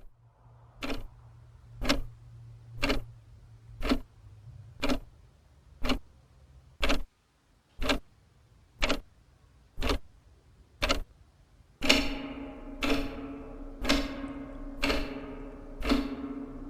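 Steady clock-like ticking, one sharp tick a second. About three-quarters of the way through, each tick starts to carry a low ringing tone that dies away before the next.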